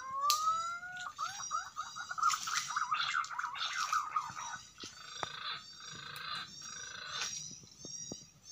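Birds calling in the forest canopy: a whistled note that rises and is held for about a second, then a run of quick falling notes for about three seconds, with shorter high chirps repeating over the top.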